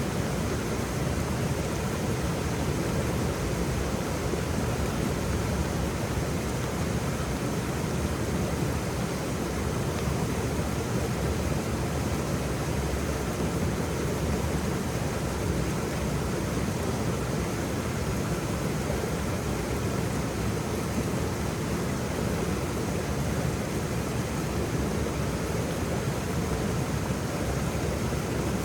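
A waterfall's steady, deep rush of falling water, with no change in level.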